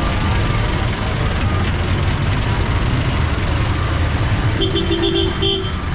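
Busy city street traffic: a steady mix of engine rumble and road noise. A few sharp clicks come about a second and a half in, and a short steady tone like a horn sounds for about a second near the end.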